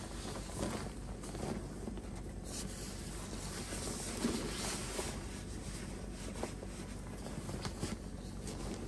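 Faint rustling and soft knocks of a puffy nylon jacket and backpack straps as a backpack is handled and swung onto the back, over a low steady rumble.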